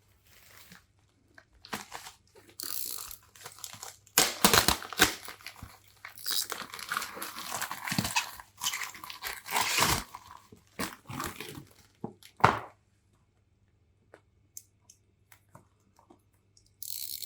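Packaging being torn and crumpled open by hand: irregular bursts of tearing, crinkling and crunching, loudest about four seconds in, stopping about two-thirds of the way through. A few light clicks follow, and a brief hiss near the end.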